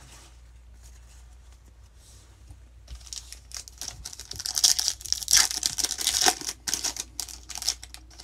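Foil wrapper of a 2020 Bowman baseball card pack being torn open and crinkled: a dense run of crackling and tearing starting about three seconds in.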